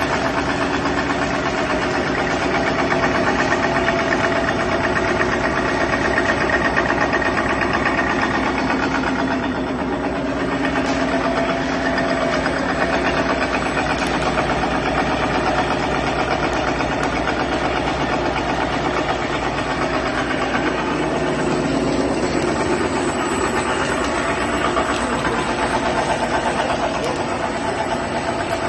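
FB-01 VPU special milling machine running with a steady mechanical drone and several held tones. The sound changes a little about a third of the way in and again about two thirds of the way in.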